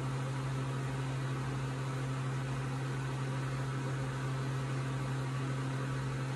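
Steady low hum with an even hiss over it: constant background noise with no change.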